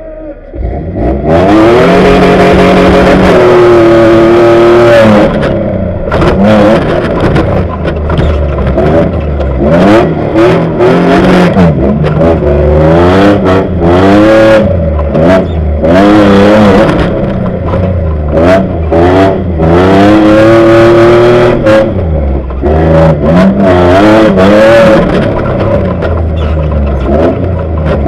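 Tuff Trucks race truck's engine revving hard and loud. Its pitch rises and falls again and again as the throttle is opened and lifted.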